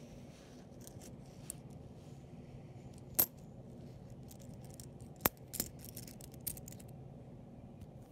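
Copper pennies clinking and clicking against one another as fingers push through a fanned-out row of coins. There is a sharp clink about three seconds in, and a cluster of lighter clicks from about five to seven seconds.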